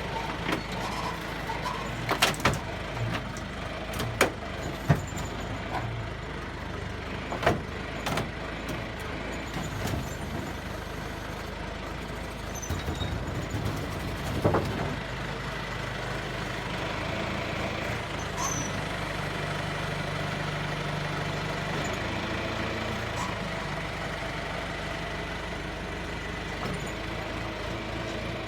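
A backhoe's engine running steadily while its bucket crushes a 1983 Oldsmobile Cutlass car body, with sharp metal cracks and crunches several times in the first half. In the second half the engine runs on a little louder with few impacts.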